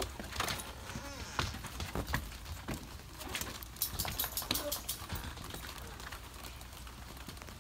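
Glass storm door being opened and let swing shut, with scattered clicks and knocks from its latch and frame and from footsteps going through, most of them in the first few seconds.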